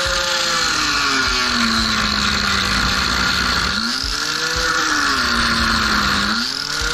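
Angle grinder with a large wheel grinding steel. The motor's pitch drops as the wheel is pressed into the metal and rises again when the pressure eases, twice, under a steady grinding hiss.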